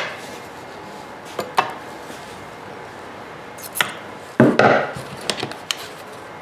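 Screwdriver prying and scraping at a cut-open steel muffler from a Honda EU2000i generator: a few scattered metallic clicks, then a louder run of clanks and scrapes about four and a half seconds in.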